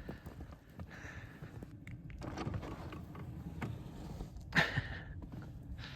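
Footsteps and handling noises, with one sharp clack about four and a half seconds in.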